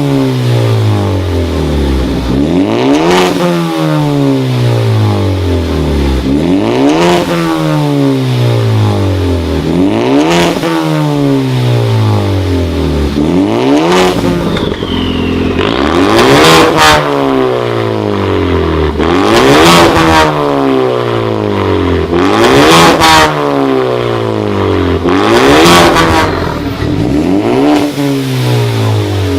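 Ford Focus ST with a modified exhaust (high-flow catalytic converter and 3-inch cutout) being revved over and over, about every three to four seconds. Each rev climbs and then drops back. The revs in the second half are louder and sharper.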